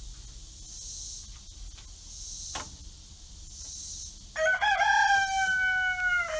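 A rooster crowing once: one long crow of about two seconds, starting past the middle and falling slightly in pitch at the end. A single knock of wood comes a little before it.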